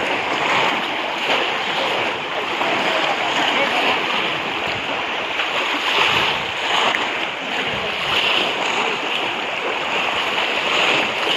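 Water splashing and sloshing as many people wade through a shallow pond and plunge bamboo polo basket traps into it, with a crowd's indistinct voices mixed in.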